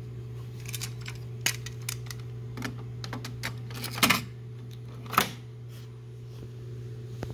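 Hard plastic clicks and clatter as a cassette is loaded into the open cassette well of a JVC KD-V44 deck, with a cluster of clicks about four seconds in and the cassette door snapping shut, the loudest click, about five seconds in. A steady low hum runs underneath.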